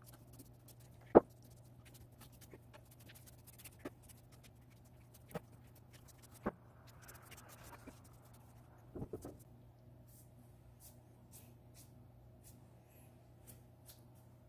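Scattered light knocks and clicks from handling the piece, the sharpest about a second in and a short cluster around nine seconds, over a steady low hum of room tone.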